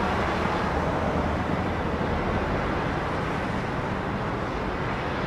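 Steady city street traffic noise: a continuous hum of passing vehicles.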